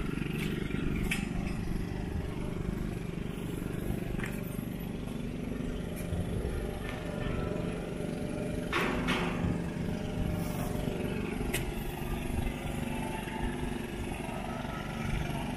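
An engine running steadily at an even pitch, with scattered clicks and knocks and a louder clatter about nine seconds in.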